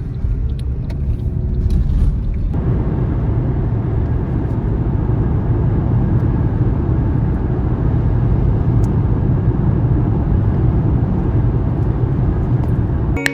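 Steady low rumble of a car in motion, fuller from about two and a half seconds in, cutting off suddenly at the end.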